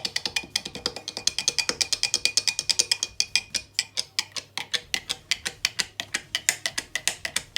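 A spoon stirring briskly in a mug of coffee, clinking against the mug's sides about eight times a second with a short ringing tone on each strike.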